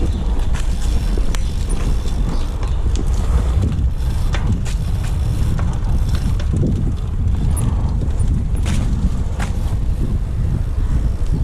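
Wind rumbling on a GoPro Hero 5's microphone during a bicycle ride over a rough dirt trail, with scattered clicks and rattles of the bike.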